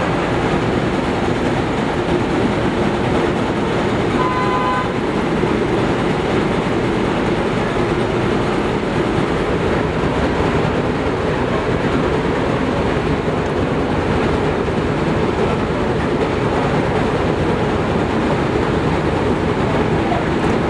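Steady, loud machine-like background noise without pauses, and a short pitched tone, under a second long, about four seconds in.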